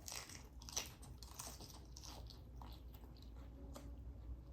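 Faint chewing of a mouthful of salad topped with crunchy garlic chili oil: a run of short crisp crunches, with one sharper crunch about a second in.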